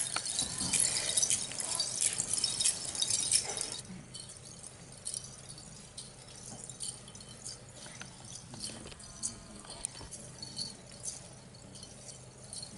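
Rapid, dense rattling and jingling for about the first four seconds. It then drops away suddenly to a faint background with scattered clicks and taps.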